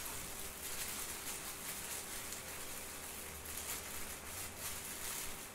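Plastic freezer bag of baked eggplant pieces rustling faintly as gloved hands press it flat and close it.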